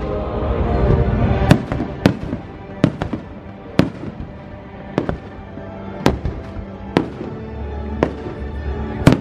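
Aerial fireworks shells bursting in a string of sharp bangs, roughly one a second, over the fireworks show's music, which is loud at first and drops back about a second and a half in.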